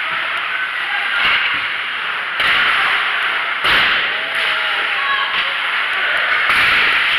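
Live ice hockey play: skates scraping on the ice under a steady hiss, with a few sharp knocks of sticks and puck and brief shouts from players.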